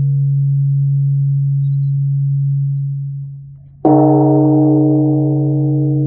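Large Korean bronze temple bell (beomjong) humming low as its previous stroke dies away, then struck again just under four seconds in. The new stroke rings out with many overtones that slowly fade over a deep, lasting hum.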